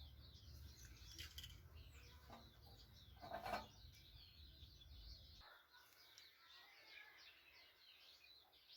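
Faint chirping of small birds, many short calls, over a low rumble that cuts off abruptly about five and a half seconds in; one brief louder sound about three and a half seconds in.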